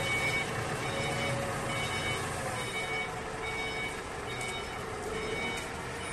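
Forklift engine running under load with its travel warning beeper sounding in a steady series, about one short beep a second.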